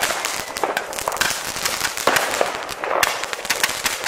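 Fireworks and firecrackers going off: a dense, unbroken crackle of many bangs and pops, some loud, overlapping all the time.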